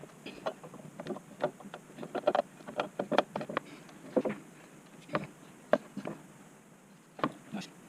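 Irregular light knocks and clicks, as of small hard objects being handled and set down on a workbench, about fifteen in all, in uneven clusters.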